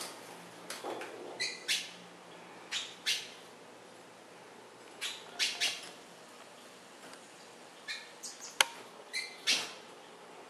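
Caged hooded siskins giving short chirping calls, singly and in quick pairs and threes, with one sharp click late on.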